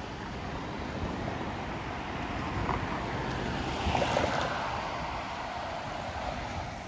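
Road traffic passing close by: a swell of tyre and engine noise that peaks about four seconds in and then eases, over wind rumble on the microphone.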